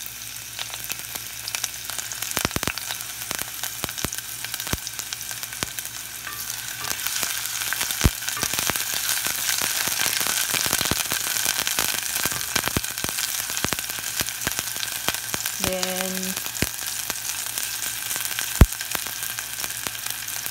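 Sliced onion sizzling and frying in a tablespoon of hot avocado oil in an enameled cast-iron pot, stirred with a wooden spatula. The crackling sizzle grows louder about eight seconds in, with a couple of sharp knocks.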